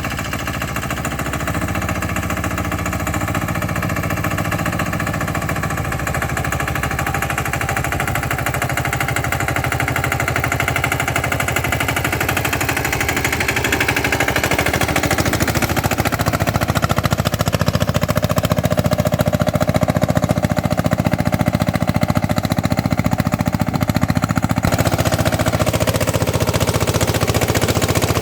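Three-wheel tractor's engine running with a rapid, even thumping. It grows louder over the stretch, and the pitch rises and shifts about halfway through, as when the engine picks up speed.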